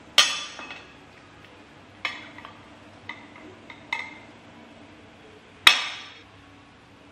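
Metal cutlery and dishes clinking: a fork and spoon tapping a glass plate, and a ceramic plate set down into it. There are five sharp, ringing clinks, the loudest just after the start and another near the end.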